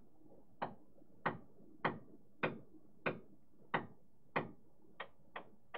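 A series of about ten short, sharp knocks, evenly spaced at roughly one and a half a second and coming closer together near the end.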